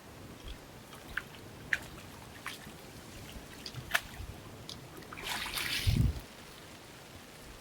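Water dripping and trickling in scattered small drops, with a short louder rush of noise about five seconds in that ends in a low thump.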